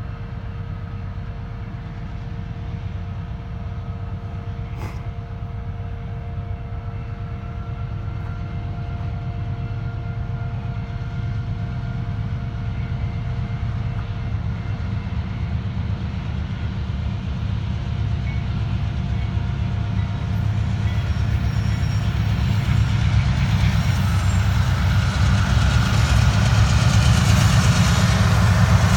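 Diesel locomotives of a heavy BNSF coal train working hard to accelerate: a deep engine rumble with steady whining tones above it, growing steadily louder.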